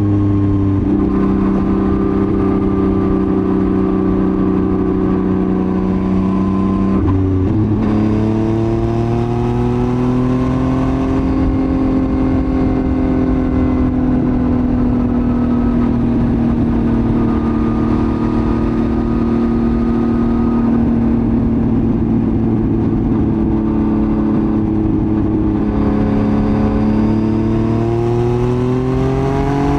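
Yamaha MT-09's three-cylinder engine running through a Roadsitalia titanium full exhaust while riding. It holds a steady note, dips and changes about seven seconds in as if shifting gear, climbs in pitch, holds steady for a long stretch, then revs up again near the end.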